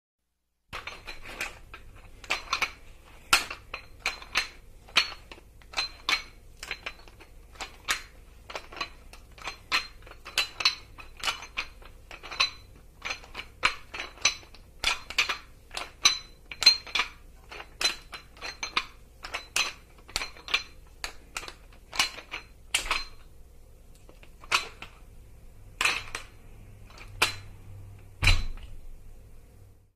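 Metal barbell weight plates clinking and clanking against each other and the bar, with a short metallic ring, about two clinks a second. They grow sparser toward the end, and a heavier thud comes near the end.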